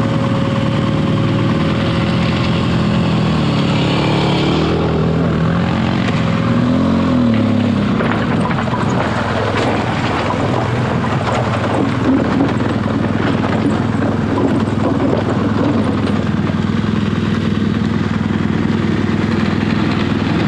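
Adventure motorcycle engine running on a steep, loose off-road trail, with a brief rise and fall in revs about seven seconds in and a rougher, noisier run after that.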